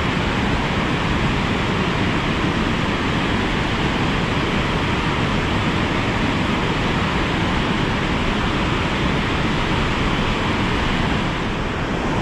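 Rushing river water, a steady, unbroken rush of white water over rocks.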